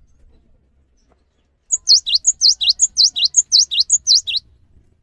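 Cinereous tit (gelatik batu) singing a rapid string of high, loud notes, each sliding downward, about five a second. The song starts just under two seconds in and stops after nearly three seconds.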